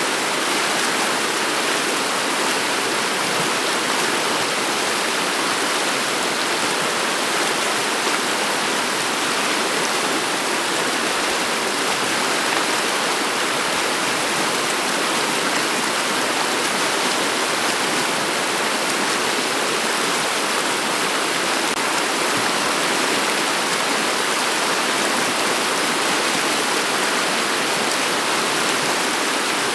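Shallow river water flowing steadily over a pebble bed, an even, unbroken sound of running water.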